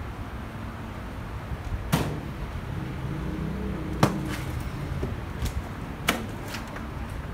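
Three sharp knocks about two seconds apart, with fainter clicks between, over a low rumble: the steel frame and packing of a motorcycle shipping crate being handled as the crate is taken apart.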